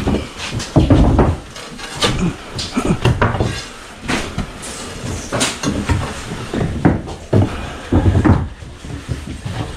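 Steel crowbar prying up nailed wooden floorboards and joists: irregular wooden knocks, bangs and creaks.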